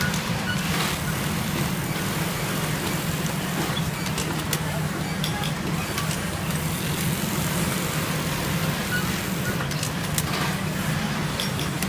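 Industrial sewing machine running with a steady low hum while stitching through a plastic profile sewing template, with scattered light clicks.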